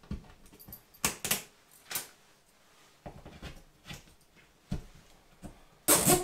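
Toggler snap-toggle drywall anchors being set by hand: a string of irregular sharp plastic clicks and snaps as the caps are pushed along the straps and the strap tabs are snapped off, the loudest snap near the end.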